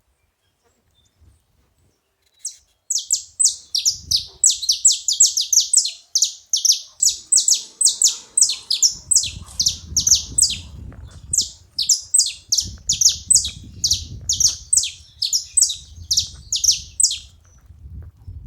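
Saffron finches singing: a fast, unbroken run of sharp, high, downward-slurred chip notes, about three a second. It starts about three seconds in and stops shortly before the end. A faint low rumble lies underneath through the second half.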